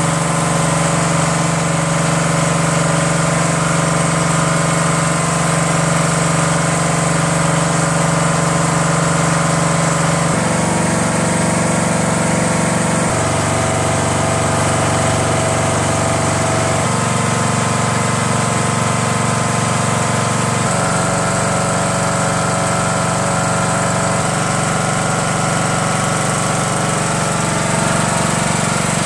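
Craftsman lawn tractor's 17.5 HP OHV engine running steadily. Its speed steps up and down several times.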